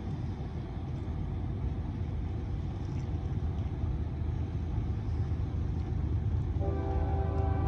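Approaching CSX freight train: the low rumble of the diesel locomotives grows steadily louder, then about seven seconds in the locomotive horn starts sounding, a steady chord of several notes.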